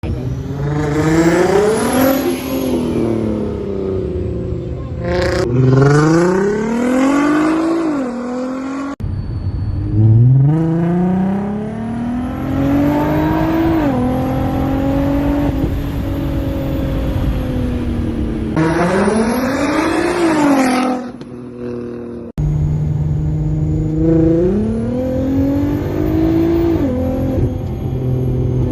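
Supercharged VR6 engine of a 400 hp VW Golf R32 accelerating hard through the gears. The engine pitch climbs and then drops at each upshift, repeated across several clips. A thin high whine rises with the revs.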